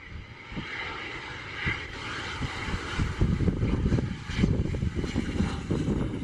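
Pilatus PC-24 business jet landing, its two Williams FJ44 turbofans giving a hissing jet whine as it passes on short final and settles onto the runway. Wind buffets the microphone with a gusty low rumble that grows louder in the second half.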